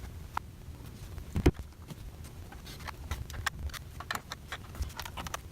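Small clicks and taps of a pentalobe screwdriver turning the bottom-case screws out of a MacBook Pro's aluminium case, with one sharper click about a second and a half in.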